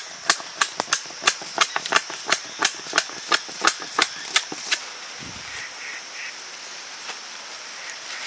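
A blade chopping or hewing with quick sharp strikes, about three a second, stopping about four and a half seconds in.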